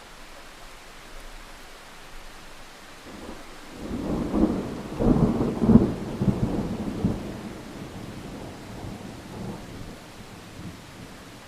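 Steady rain hiss, with a roll of thunder building about three seconds in. It peaks in a few sharp cracks, then rumbles away over several seconds.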